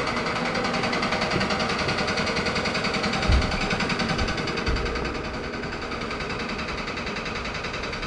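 A machine running steadily with a fast, even pulse of several beats a second. A low thump comes a little over three seconds in, and the sound grows somewhat quieter about five seconds in.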